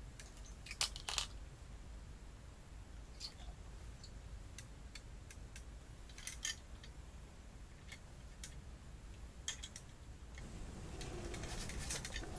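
Scattered small sharp clicks and ticks from hands working a small plastic winter fishing rod and its reel and line, the loudest two about a second in. About ten seconds in, a steadier soft rustling noise rises.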